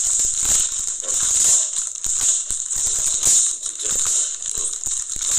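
Crinkly plastic wrapper of a pack of Oreo cookies being pulled open, a fast, irregular crackling.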